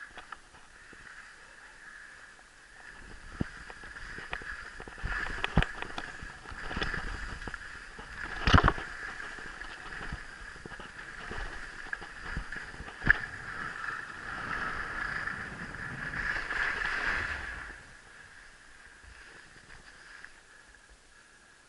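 Riding noise from a bicycle on a climb: a steady rush of movement with scattered clicks from the bike. It swells louder for most of the stretch, with two sharp knocks, one about eight seconds in and one about thirteen seconds in, before easing off near the end.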